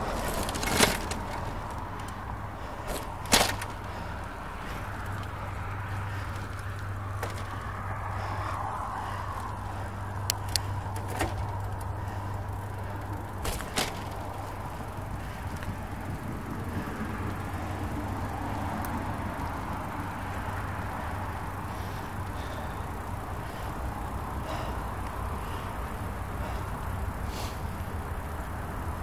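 Steady road and traffic noise heard while riding along a city road, with a few sharp clicks and knocks, the loudest about a second in and again about three seconds in.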